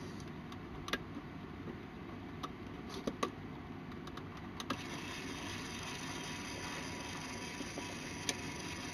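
Small LEGO electric motor whirring steadily as it turns the plastic crankshaft and pistons of a LEGO Technic fake inline-four engine, with a few light plastic clicks. The whir gets a little louder and brighter about halfway through.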